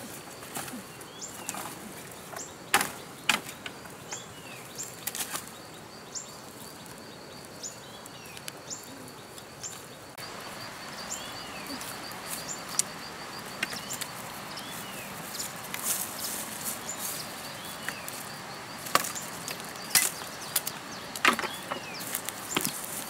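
Dry bamboo stalks and sticks cracking and snapping in irregular sharp cracks as they are broken and chopped with a blade, loudest about three seconds in and again in a cluster near the end. Under them a steady high insect trill with a fast regular tick and repeated short bird chirps.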